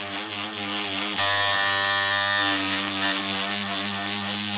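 Tattoo machine running with a steady electric buzz while its needles work shading strokes into thin foam practice paper; the buzz gets louder and hissier for about a second and a half near the middle.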